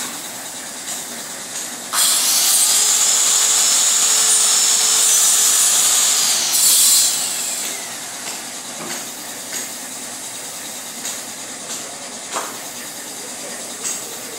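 Compressed-air paint spray gun hissing loudly while its trigger is held. The hiss starts suddenly about two seconds in, lasts about five seconds, and tails off with a falling tone. Around it there is a quieter steady hiss with scattered clicks.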